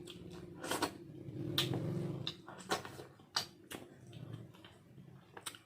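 Close-up mukbang eating sounds: a person chewing a mouthful of stewed fish and rice, with irregular wet mouth clicks and lip smacks.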